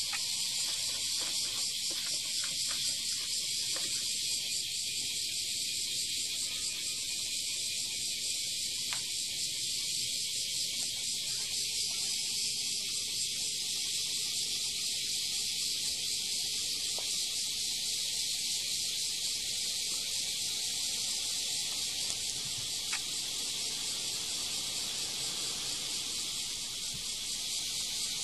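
A steady, high-pitched hiss that holds the same level throughout.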